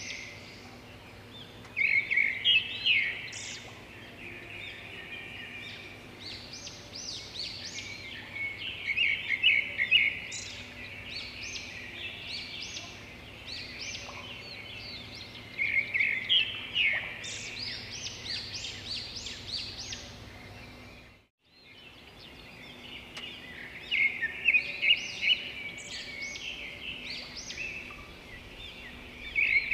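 A bird singing in bouts of rapid high chirps every few seconds, over a faint low hum. The sound cuts out for a moment about two-thirds of the way through.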